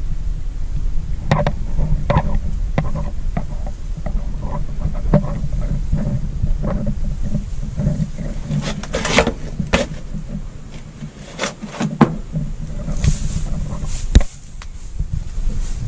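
Low wind rumble on the microphone, with scattered knocks, clicks and rustles from someone moving about on the van's floor and fittings.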